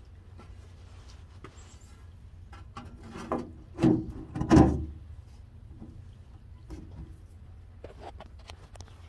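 Metal lid of a Little Chief electric smoker being handled and set in place: light knocks and rattles, then two loud clunks a little under a second apart near the middle.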